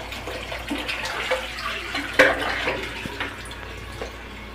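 Water running and splashing, uneven, with one louder sudden sound about two seconds in.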